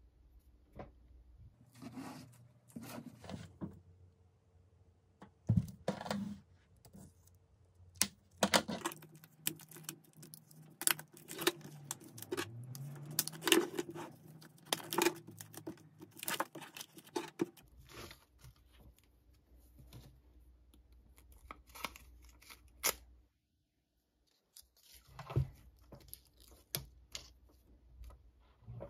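Plastic wrapping crinkling and tearing as stacks of paper memo pads are unwrapped and handled. It comes as a run of rustles, small taps and clicks, busiest in the middle and sparser toward the end.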